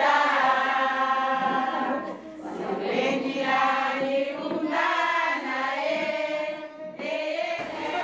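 A group of women singing together in long held phrases, with short breaks between phrases about two seconds in and near the end.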